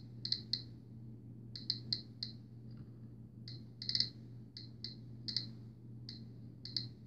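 GQ GMC-320 Geiger counter clicking at an irregular, fairly quick rate, about three clicks a second with some quick runs of three or four. Each click is a count from its exposed Geiger tube picking up radiation from 1930s depression-era uranium glass.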